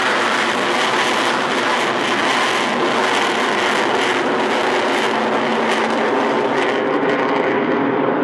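Avro Vulcan's four Rolls-Royce Olympus turbojets roaring loud and steady as the bomber banks overhead and pulls up into a steep climb. The hiss at the top of the sound thins out near the end as it climbs away.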